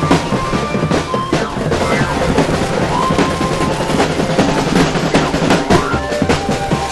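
Marching drum band playing: a large bass drum and snare drums beaten in a dense, continuous rhythm with rolls.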